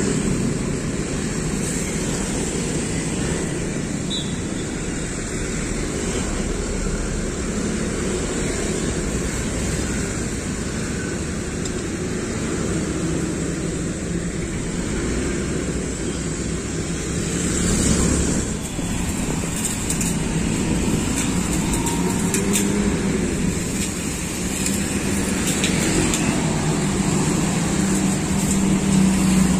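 Street traffic: motorcycles and cars running past steadily, with one vehicle passing close and louder about eighteen seconds in. Near the end a heavy engine's steady low hum builds as a bare bus chassis drives past.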